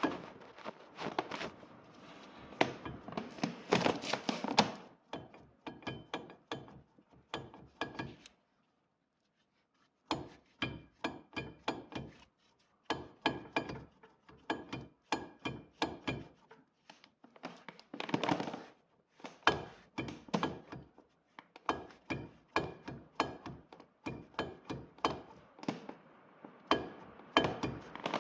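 Irregular series of knocks and clunks, several a second, many with a short metallic ring, in groups broken by brief pauses.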